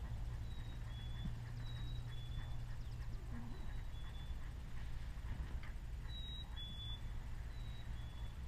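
A small songbird whistling a repeated two-note song, a clear high note followed by a slightly lower one, over and over. Under it runs a low, steady rumble.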